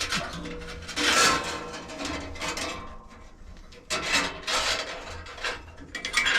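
Metal scraping and rubbing in several bursts as a bandsaw blade is handled and worked off the saw during a blade change.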